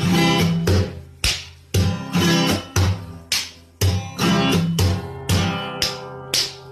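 Background music: chords strummed on a string instrument, struck about twice a second.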